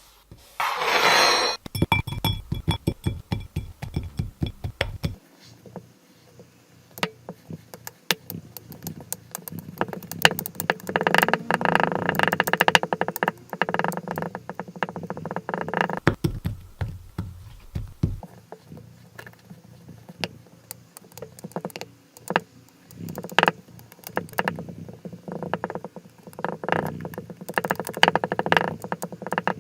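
Kinetic sand being cut, pressed and crumbled, with dense crunching and crackling and many sharp little clicks.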